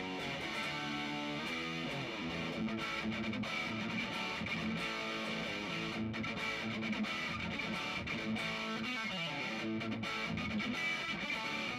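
1974 Gibson Flying V electric guitar played through an amplifier with distortion on the bridge pickup: continuous quick riffing and single-note lines with no pause.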